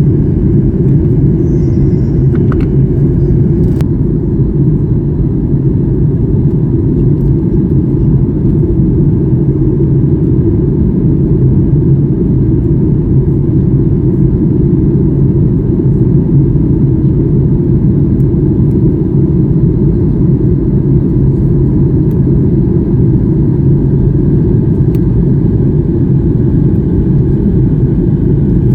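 Steady low rumble inside the cabin of a Boeing 737 MAX 8 in flight, from its CFM LEAP-1B engines and the airflow, during the descent into landing. A couple of faint clicks sound about three seconds in.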